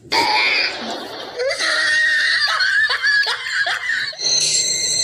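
A person laughing in quick, repeated bursts. About four seconds in, a steady high-pitched tone sets in and holds.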